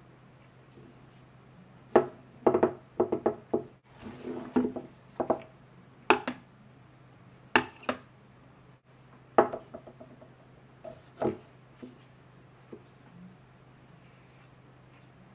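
Plastic toy cookware clattering: a plastic ladle and spoon knocking against a plastic saucepan and the tabletop in scattered sharp clicks, with a short run of rattling about four to five seconds in.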